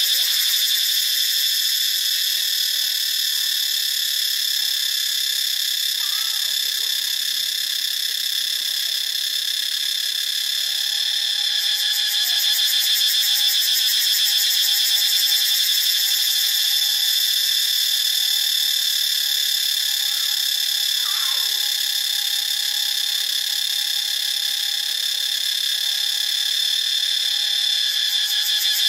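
Cicada calling: a loud, steady, shrill buzz that runs on without a break.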